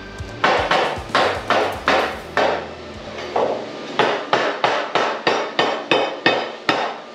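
Sledgehammer striking a welded steel plate over and over to knock welding slag off the weld beads: sharp ringing metal-on-metal hits, about three a second, with a short pause about three seconds in.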